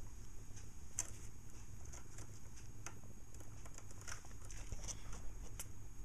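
Budgerigars making faint, scattered short clicks and ticks at an uneven pace of about three a second, over a low steady hum.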